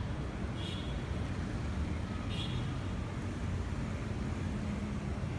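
Street traffic of cars, a minibus and motorbikes passing slowly, a steady low hum of engines, with two brief high sounds about one and two and a half seconds in.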